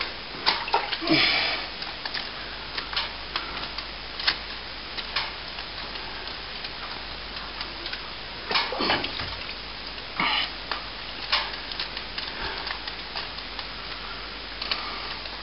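Water splashed off a wet brush into the gap behind a plaster cornice: scattered spatters and drips, with a few short, louder splashes.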